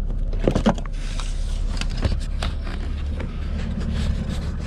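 Hands working at a car dashboard speaker and its wiring: several short clicks and scrapes of plastic and wire, mostly in the first couple of seconds, over a steady low rumble.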